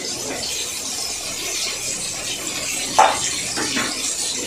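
Onions and herbs frying in hot oil in a large cooking pot, a steady sizzle, with a sharp knock about three seconds in and a couple of lighter clicks just after.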